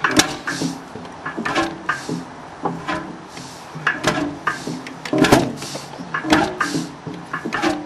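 1937 Beijer 25 HP horizontal hot-bulb engine running, its firing strokes coming as uneven knocks and exhaust puffs, about two or three a second, with mechanical clatter between them.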